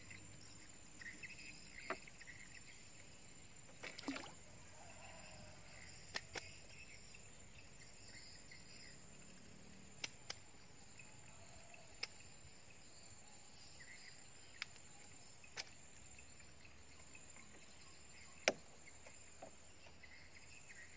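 Quiet outdoor ambience with faint insect chirping, broken by about a dozen sharp, irregular clicks and knocks from fishing rods and tackle being handled in a wooden boat. The loudest knock comes near the end.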